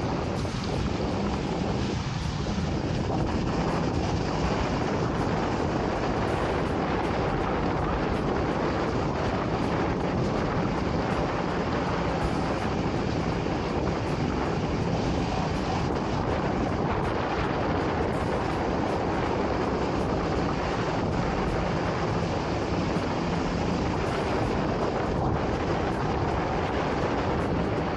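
Steady wind rushing over the microphone of a moving electric scooter, mixed with tyre and traffic noise on the wet road.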